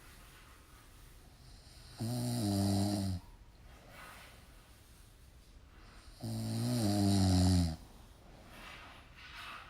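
Snoring: two long, loud snores about four seconds apart, each starting with a slight rise in pitch, with quiet breathing between them.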